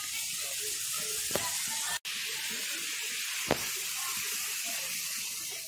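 Steady hiss of rushing water, with two faint clicks.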